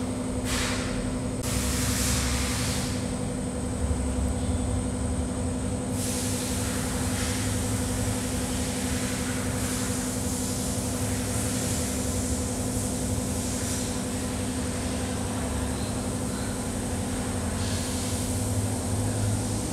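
Steady mechanical background hum, with a few brief scrapes and rustles as the engine's cylinder head cover is worked loose by hand.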